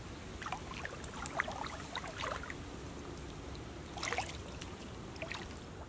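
Gentle water lapping with scattered small drips and plinks, in two clusters: early on and again about four seconds in.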